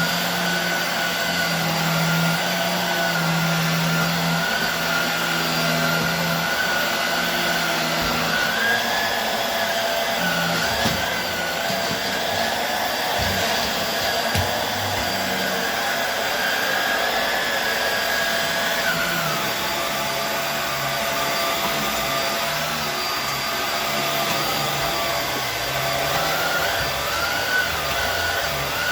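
Hoover Air Steerable WindTunnel upright vacuum cleaner running steadily as it is pushed over a rug, its motor whine wavering slightly in pitch, with a few short knocks midway.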